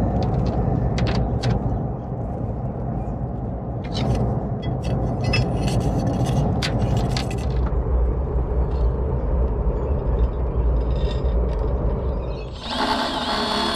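Thin electrical wire being handled and untangled: light clicks and scrapes over a steady low rumble. About a second before the end, a louder sound with steady pitched tones cuts in.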